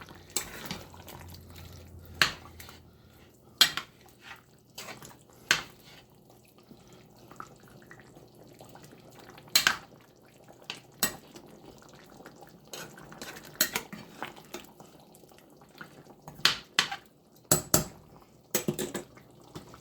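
A utensil stirring chicken curry in a metal pot, with irregular sharp clinks and knocks against the pot.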